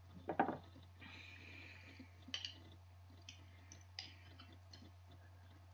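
Quiet eating sounds of a salad meal: a short low mouth sound about half a second in, a soft breath, then a scattering of small sharp clicks from chewing and eating, over a steady low electrical hum.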